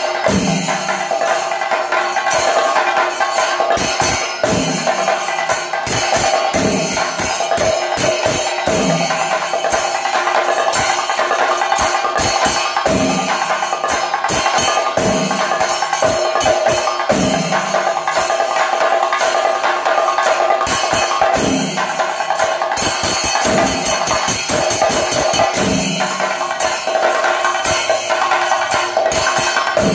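Thayambaka ensemble of chenda drums playing fast: a dense run of stick strokes on the chenda head over steadily clashing ilathalam cymbals. Deeper valamthala chenda strokes land about every two seconds.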